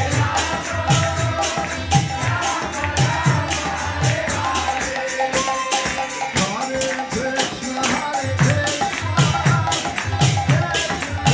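Kirtan devotional music: mridanga drums beating about two strokes a second with jingling hand cymbals, harmonium and chanting voices. The drums drop out for a few seconds in the middle, then come back in.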